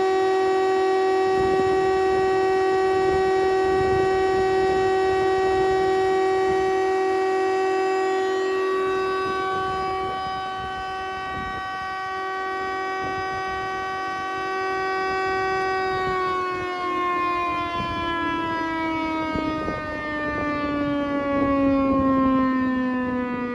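SCM S630 planer-thicknesser's four-knife cutterblock spinning with no wood feeding, a loud steady whine. About two-thirds of the way through it is switched off and the whine falls steadily in pitch as the cutterblock coasts down.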